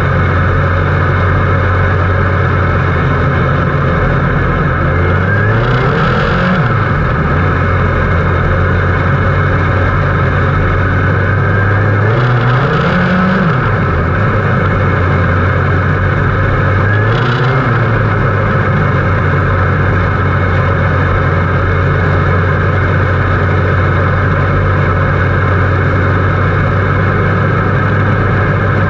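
Midget race car's engine heard from the cockpit, running steadily at slow pace speed. About six, thirteen and seventeen seconds in it gives three brief throttle blips, each rising and falling in pitch.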